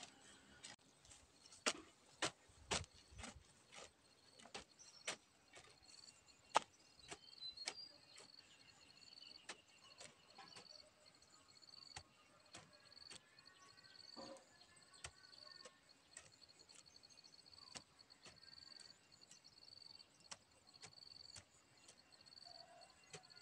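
A hand hoe chopping and scraping into dry soil: an irregular run of sharp strikes about one a second, louder in the first several seconds. An insect's high, pulsing trill runs behind it.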